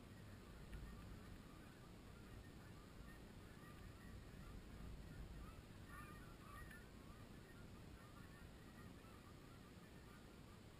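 Faint, distant honking of Canada geese: many short calls overlapping, as from a flock, over a low wind rumble on the microphone.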